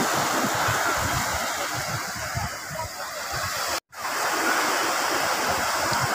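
Surf breaking and washing up a sandy beach, a steady rushing wash of waves, with wind rumbling on the microphone underneath. The sound cuts out completely for an instant a little past halfway.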